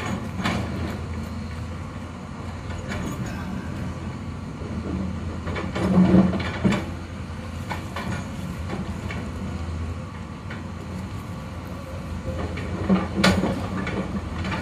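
Hyundai hydraulic excavator's diesel engine running steadily while loading a dump truck, with loud clattering as rock and sand are dropped into the steel truck bed, about six seconds in and again near the end.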